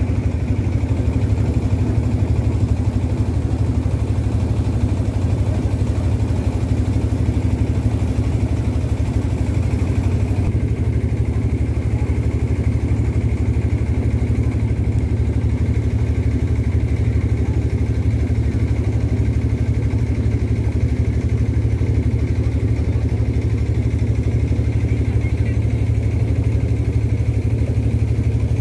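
A river boat's engine running steadily, a loud, even, low drone that does not change.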